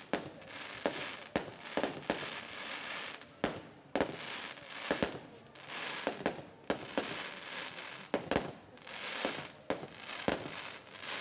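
Fireworks display: shells bursting in a string of sharp bangs at irregular intervals, about one a second, over a steady crackling hiss.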